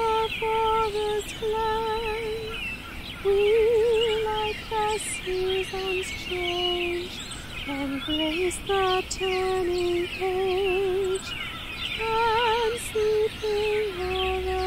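A woman's solo voice singing a slow, unaccompanied melody of long held notes with vibrato, an original song on a tune drawn from a 14th-century French ballad. Birds chirp all through, higher up.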